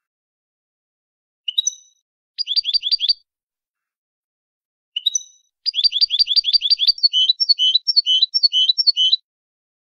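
European goldfinch singing in the Málaga style (canto malagueño): a single note, a quick trill, another note, then a long rapid trill that turns into a slower run of alternating high and low notes.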